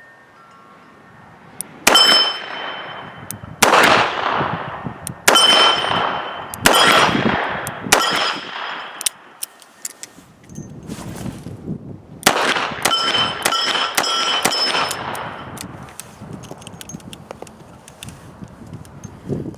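Smith & Wesson Model 60 snub-nose revolver firing light 158-grain target handloads: two strings of shots, four at an even pace, then after a pause a few more, each sharp crack trailing into a ringing metallic clang.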